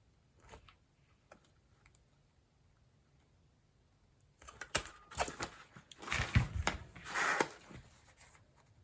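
A few faint clicks, then about four seconds of dense clicking and crunching from a Crop-A-Dile hand punch being worked to punch the hole for an eyelet.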